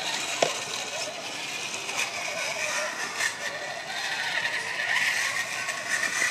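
Two RC rock crawlers, a DF-models DF-4J and an ECX Barrage, driving over a dirt track: their electric motors and gearboxes whine, the pitch rising and falling with the throttle, with rattling and a sharp click about half a second in.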